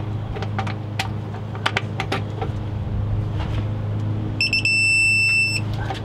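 Ratchet clicks and sharp snaps from a click-type torque wrench tightening driveshaft flange bolts to 85, over a steady low hum. About four and a half seconds in, a high electronic beep sounds: three short pips, then one tone held for about a second.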